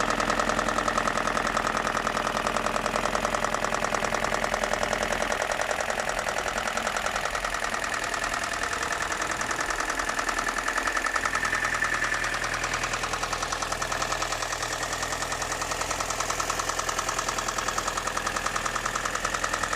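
BMW M42 1.8-litre inline-four engine idling with a steady, regular knocking, the unexplained knock the owner is asking for help to diagnose.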